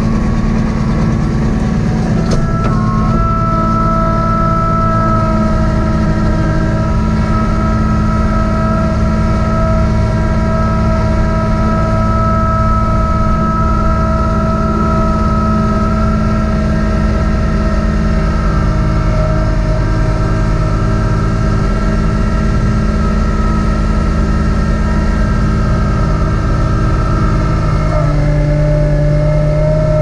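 Kubota B2650 compact tractor's three-cylinder diesel engine running steadily while driving its front snowblower. The pitch steps up slightly about three seconds in and dips a little near the end.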